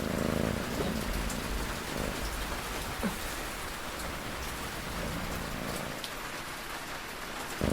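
Steady rain falling, with a cat's slow snoring faint underneath, a soft low swell every two to three seconds.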